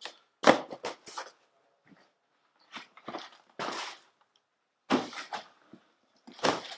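Cardboard shipping boxes being set down and shuffled into place: a series of dull thumps and scuffs, the loudest about half a second in, with a longer scraping slide a little past the middle.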